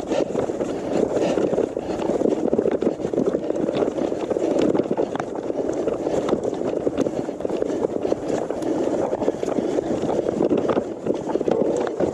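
Gravel bike riding fast over a rough trail covered in dead leaves and stones: a steady rush of tyre noise with many small rattles and knocks from the bike over the bumps.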